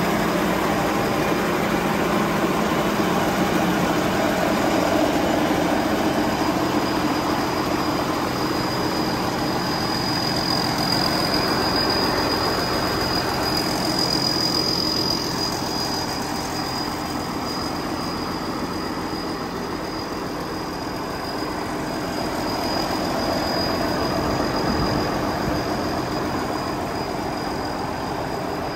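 Somboon Pattana rice combine harvester running steadily, engine and machinery noise with a thin high whine over it. It eases a little past the middle, then picks up again.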